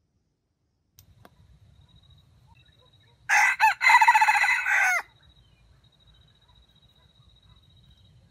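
Red junglefowl rooster crowing once, a short crow of under two seconds with a couple of brief breaks, its last note dropping off.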